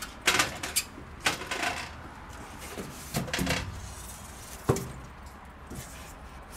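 A polystyrene foam box being handled and shifted, its foam walls scraping and squeaking in several short bursts, with one sharp knock a little before the five-second mark.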